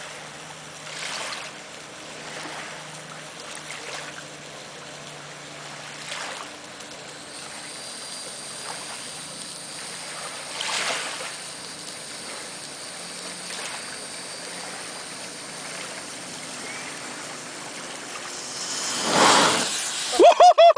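Practice golf ball packed with sparklers burning: a steady fizzing hiss that swells now and then. About nineteen seconds in it surges into a loud rushing flare-up as the ball goes up in a fireball, followed right at the end by a loud shout.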